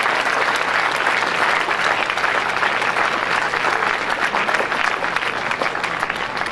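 Audience applauding with dense, steady clapping that thins a little near the end.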